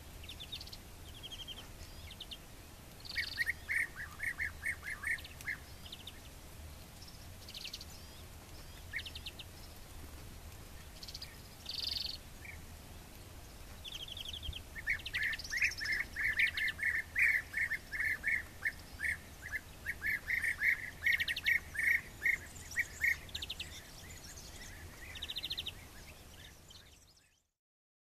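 European bee-eater calling: rapid runs of short, rolling notes, a brief run a few seconds in and a longer, louder one through the second half, with scattered higher chirps in between.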